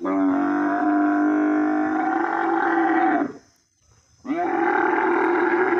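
Camel calling: two long, loud, drawn-out pitched calls. The first lasts about three seconds, and after a second's pause the second starts and carries on.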